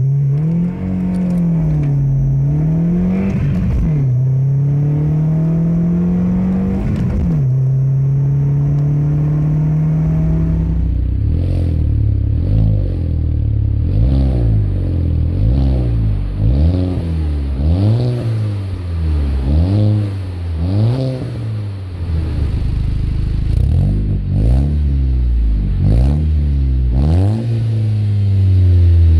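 Audi A4 B7 2.0T turbocharged four-cylinder with a Stage 2 tune and upgraded high-pressure fuel pump, heard from inside the car accelerating, its pitch climbing and dropping at gear changes, then holding steady. About 11 seconds in it gives way to the exhaust of another Audi A4 B7 revved in short, repeated blips, about one a second, heard at the tailpipes.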